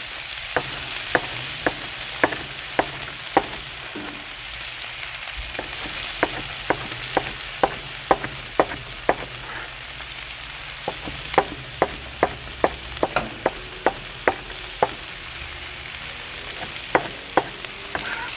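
Chef's knife chopping cooked bacon on a plastic cutting board: sharp knocks about two a second, in several runs with pauses between. Under them, a steady sizzle of sliced potatoes frying in bacon grease on a flat-top griddle.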